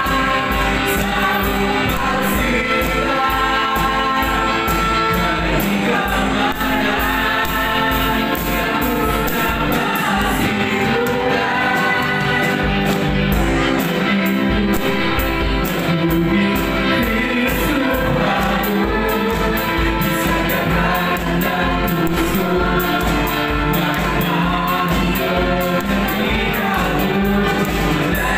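Live gospel praise music: several voices singing together over keyboard and a drum kit keeping a steady beat.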